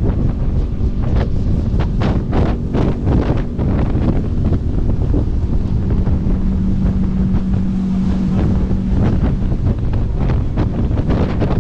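Boat engine running with a steady hum, under heavy wind buffeting the microphone in gusts.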